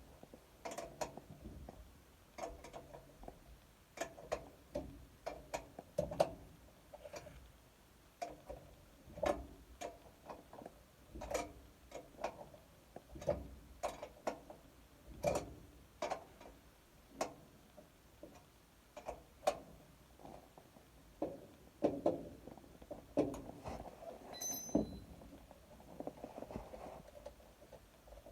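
Irregular clicks and knocks, roughly one a second, from tools and furnace parts being handled during servicing, with a brief high ring about three-quarters of the way through.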